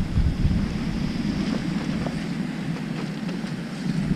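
Wind buffeting the microphone in a steady low rumble, with the wash of surf behind it.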